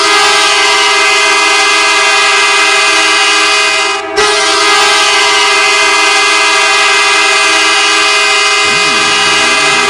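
Edmonton Oilers hockey goal horn sounding two long, loud, steady blasts, with a short break about four seconds in.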